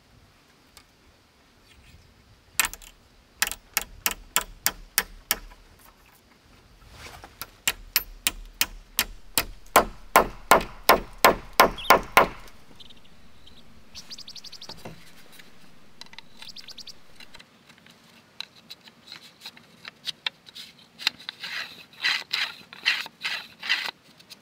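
Three runs of repeated strikes of a hand tool on wood, about two to three blows a second, the middle run the loudest; between them, a fainter scraping rasp.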